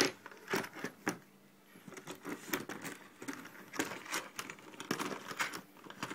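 Irregular clicks, taps and knocks as metal bars are slid through the clamps on plastic channel letters and the letters are shifted about on a tabletop.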